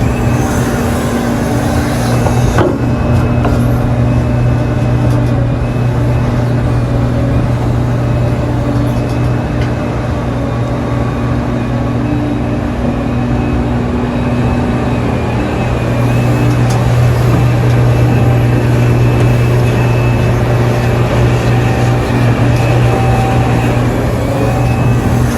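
Heavy diesel engines of earthmoving machines, hydraulic mining excavators and dump trucks, running steadily with a deep hum. There is a single sharp knock about two and a half seconds in.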